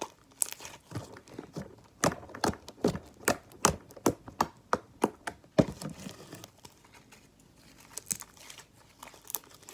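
Fluffy shaving-cream slime being squeezed and kneaded by hand, giving a fast run of sharp sticky clicks and pops, about three or four a second, that fade to a few faint ticks after about six seconds.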